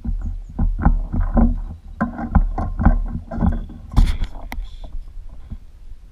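Irregular knocks, clicks and thumps against a small fishing boat, over a steady low rumble, about three or four strikes a second at their busiest, thinning out near the end.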